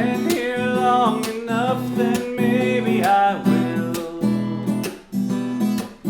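Acoustic guitar strummed in a steady chord pattern, with a melody line that glides and bends above the chords twice.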